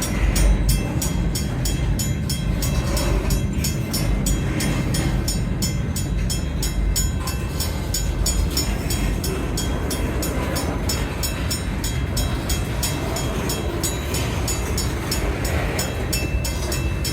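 CN freight train rolling past with a heavy low rumble and a fast, steady clicking.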